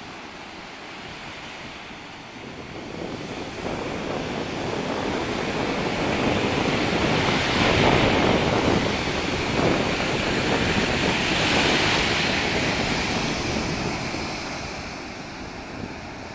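Sea surf washing in, with wind buffeting the microphone; the rushing noise builds over several seconds, peaks twice, then eases away.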